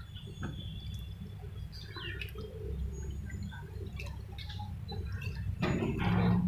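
Small birds chirp now and then over a steady low hum, with faint wet sloshing as a hand squeezes cooked tomatoes in a bowl of water. A louder rustling noise comes near the end.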